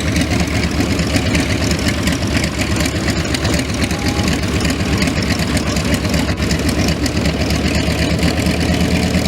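Grumman TBM Avenger's Wright R-2600 fourteen-cylinder twin-row radial engine idling as the plane taxis to parking, a steady low rumble.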